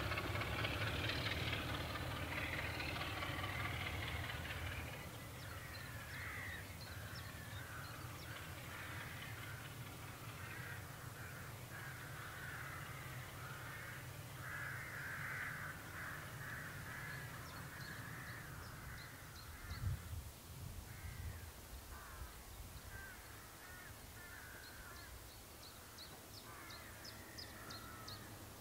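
A diesel locomotive's engine rumbling as the train draws away, fading within about five seconds. After that, crows cawing again and again, with a short low thump about twenty seconds in.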